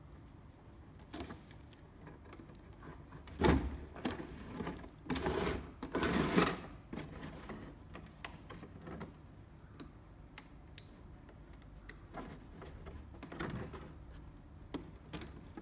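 Clear rigid plastic packaging being handled and slit with a craft knife: scratchy rustling and clicking of plastic. The loudest part is a few short crinkling bursts a third of the way in, followed by lighter scattered clicks.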